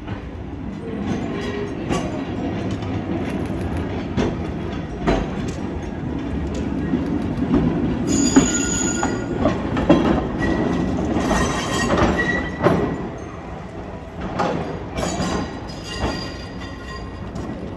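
Vintage ex-Hannover tram, Hiroden car 238, rolling past on street track: a steady rumble of its running gear, loudest as it passes, with scattered clicks as the wheels cross track joints. The wheels squeal briefly a little past the middle, and again for a couple of seconds shortly after.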